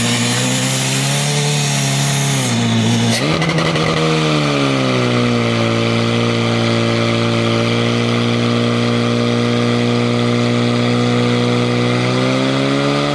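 Portable fire pump's engine running hard at high revs. About three seconds in a loud hiss alongside it cuts off and the engine note dips, then settles to a steady pitch as it drives water through the hoses to the jets, rising slightly near the end.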